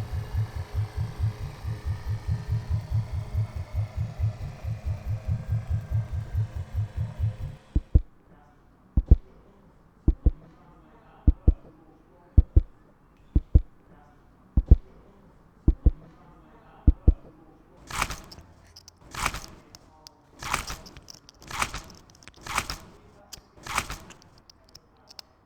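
Homemade foley: a fast, even, low thumping like a helicopter's rotor for about eight seconds, then a run of single dull thuds about a second apart, then seven sharper, brighter hits at a similar pace.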